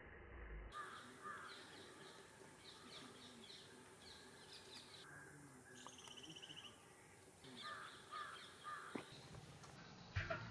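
Faint bird calls repeating in the background, with a few sharp clicks near the end.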